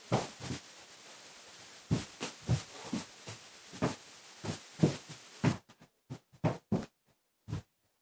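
A series of irregular thumps and knocks close to the microphone, about fourteen in all, over a steady hiss that cuts out about five and a half seconds in.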